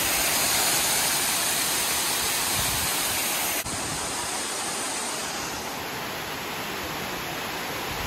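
Waterfall close up: a loud, steady rush of falling water crashing onto rock. About halfway through, the sound drops suddenly and becomes quieter, with the rushing water heard from farther off.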